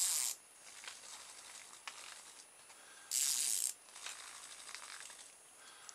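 Two short, hissing bursts of noise about three seconds apart from the plush vibrating cat toy on its card as it is handled, with a few faint clicks between them.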